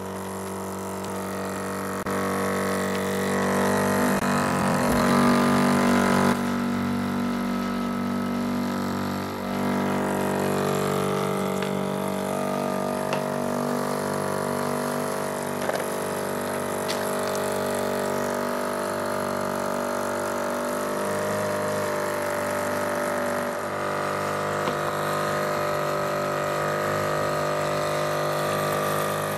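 FloJet 2100-987 12-volt diaphragm sprayer pump running with a steady electric hum, a little louder for the first few seconds. It is not picking up water: it sucks air through a cracked plastic elbow fitting on its inlet, so only air comes out of the spray wand.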